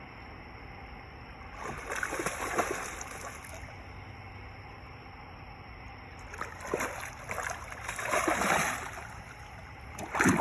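Hooked fish splashing at the water's surface as it is reeled in, in two bursts: a short one about two seconds in and a longer one from about six to nine seconds.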